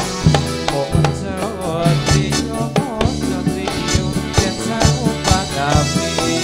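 Live music accompanying a Central Javanese dolalak dance: drums strike a quick, steady beat, about three a second, under sustained melodic instrument lines.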